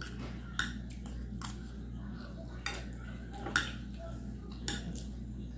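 Metal fork clinking and scraping against a plate while eating, with about seven light, separate clicks.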